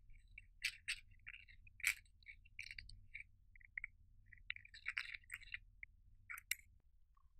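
Pressed eyeshadow scraped out of a plastic palette pan with a small tool: a run of short, dry scratches with a few sharp clicks as the tool knocks the palette and crumbs fall.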